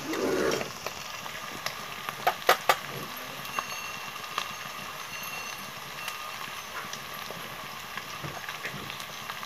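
A small steel spoon tapping and clinking against the steel cups of a masala spice box, with a few sharp taps about two and a half seconds in and fainter ticks after, over a steady background hiss. A brief muffled noise sounds right at the start.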